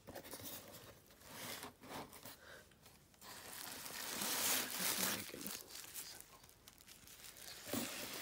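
Bubble wrap and plastic packing crinkling and rustling as a hand rummages in a cardboard box and lifts out a bubble-wrapped item, loudest for a couple of seconds from about three seconds in.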